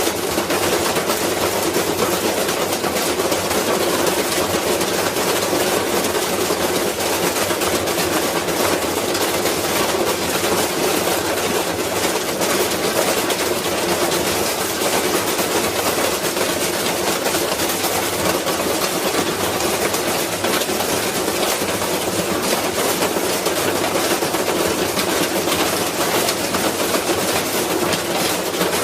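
Washing machine running hard with a loud, continuous rattling clatter, a dense stream of rapid knocks.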